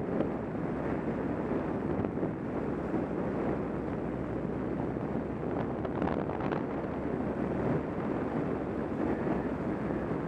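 Wind rushing over the microphone of a moving motorcycle, with the bike's engine running steadily underneath.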